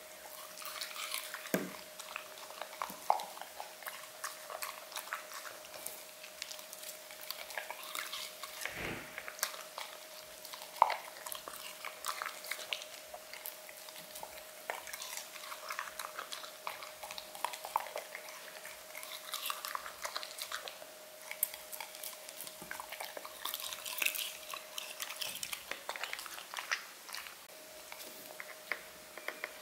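English cocker spaniel chewing and licking strawberry and celery from a plate: scattered wet clicks, smacks and small crunches. A steady faint tone sits underneath and drops out briefly near the end.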